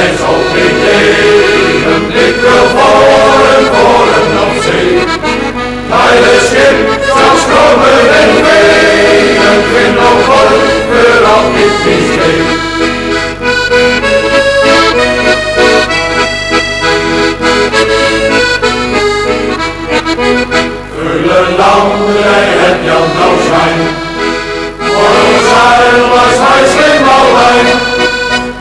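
Traditional-style accordion music playing a melody.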